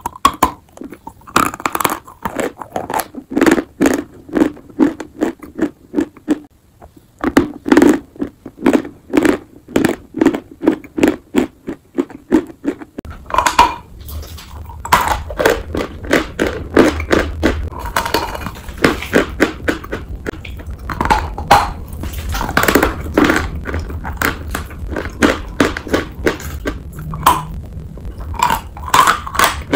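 Close-up chewing and crunching of dry chalk in the mouth: crisp crackling crunches at a steady chewing pace. About 13 seconds in, bites into a large block of Dvurechie chalk take over, with a steady low hum underneath.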